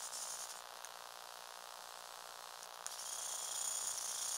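Small electric motors and plastic gears of a remote-controlled Lego Technic truck running with a high buzzing whine. The whine drops back after about half a second and comes back louder about three seconds in.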